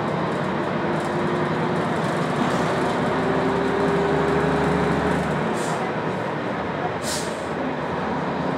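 Jelcz 120M city bus's diesel engine heard from inside the passenger cabin, pulling under load with its pitch slowly rising for about five seconds, then falling away as the manual gearbox is shifted and picking up again lower. Two short hisses come just after the shift.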